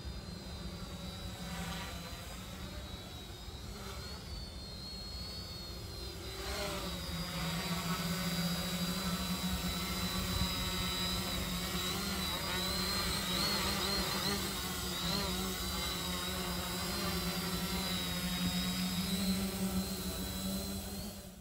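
DIY quadcopter's four brushless motors and propellers buzzing in flight, louder from about six seconds in, with the pitch wavering up and down as the motor speeds shift.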